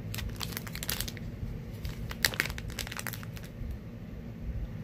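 Small clear plastic zip bag holding a wax melt crinkling as it is handled, in scattered short crackles, loudest about two seconds in.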